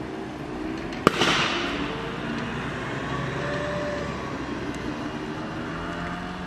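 A single sharp bang from the burning car about a second in, followed by a hiss that fades over about a second, over a steady low rumble.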